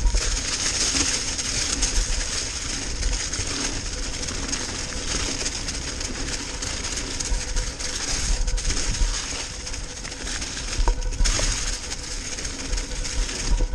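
Mountain bike tyres rolling and crunching through a trail deep in dry fallen leaves, a steady hiss with an uneven low rumble of wind on the microphone.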